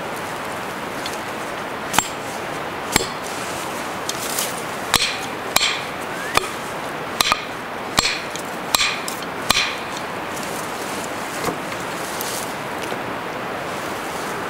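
A small metal digging tool striking stones and packed earth at the foot of a wooden post as it is tamped in: about a dozen sharp knocks with a short metallic ring, coming roughly once a second through the middle, over a steady rushing background.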